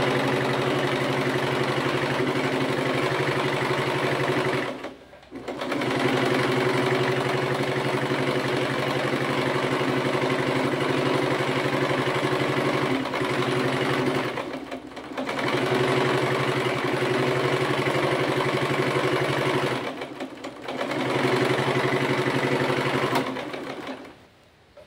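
Singer Promise portable electric sewing machine running steadily while stitching shirring into fabric. It pauses briefly three times, about 5, 15 and 20 seconds in, and stops near the end.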